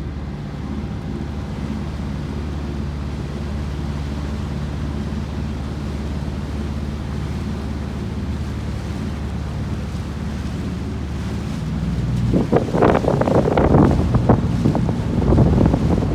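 Motorboat engine running with a steady low hum. From about twelve seconds in, loud irregular rushing of wind and water comes in over it.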